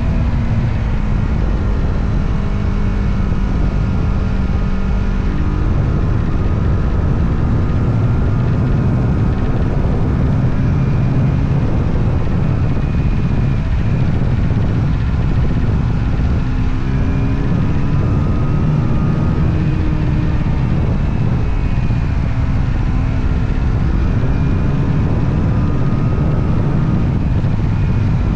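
Motorcycle engine running under way, its pitch slowly rising and falling with the throttle over a steady, heavy low rumble.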